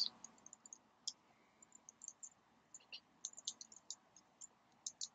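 Faint, irregular clicking of keystrokes as code is typed on a computer keyboard.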